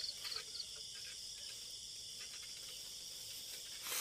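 Night insects, crickets, trilling steadily at a high pitch, with a few short chirps in the first half second. A brief rustle near the end.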